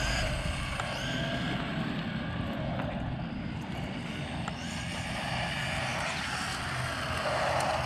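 Two electric RC cars, a Redcat Blackout XTE Pro brushless monster truck and a Team Associated Reflex 14B buggy, running on asphalt. Their motors whine steadily with tyre noise, the pitch rising and falling with the throttle.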